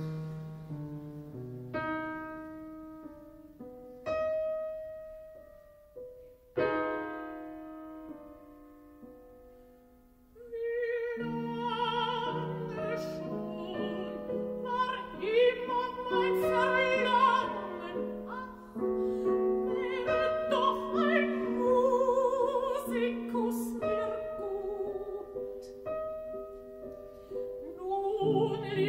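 Piano chords struck one after another and left to fade for about ten seconds, a brief pause, then a mezzo-soprano singing a German art song with piano accompaniment from about eleven seconds in.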